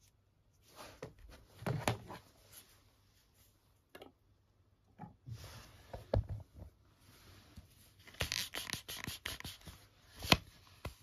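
Handling noise from a plastic toy air pump ball blaster being loaded with foam balls: scattered clicks, knocks and rustles of hard plastic, in clusters, with one sharp click near the end.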